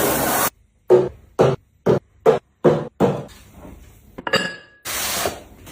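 Cleaning sounds cut together: a loud hiss stops abruptly half a second in, then six short scrubbing strokes with dead silence between them, a brief ringing clink, and another short hiss near the end.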